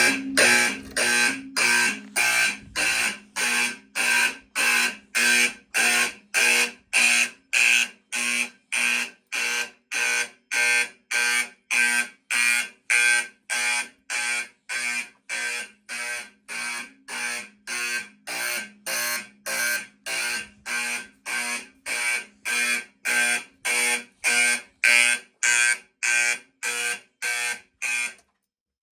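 Fire alarm horn on a homemade relay-built alarm panel, sounding in even pulses about twice a second (march-time coding). It cuts off abruptly near the end.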